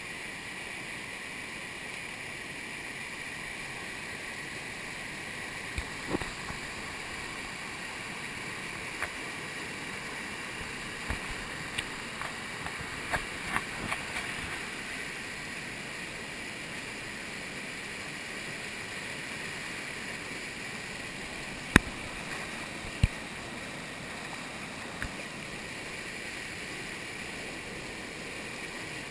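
Steady rush of whitewater pouring over a low dam and churning in the hole below it. A scattering of sharp knocks sounds over it, the loudest about three-quarters of the way through.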